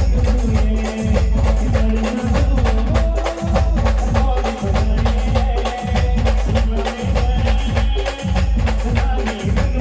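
Khandeshi band playing an instrumental passage: a fast, dense drum and percussion beat under a heavy bass and a melodic instrumental line, with no singing.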